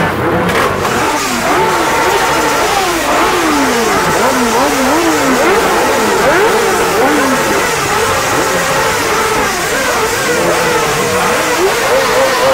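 Several sport motorcycle engines revved over and over, their pitches climbing and falling in overlapping blips. Near the end one engine holds a steadier, higher rev.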